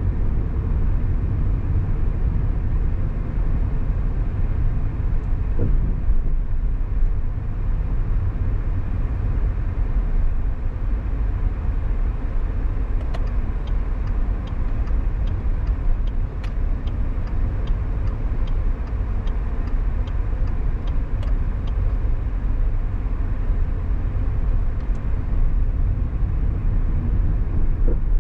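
Car driving in city traffic: a steady low rumble of road and engine noise. About halfway through, a regular ticking about twice a second runs for some eight seconds and then stops.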